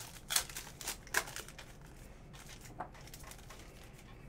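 Crinkling and tearing of a trading card pack wrapper as it is opened and the cards are handled: a quick cluster of sharp rustles in the first second and a half, then one more a little before the three-second mark.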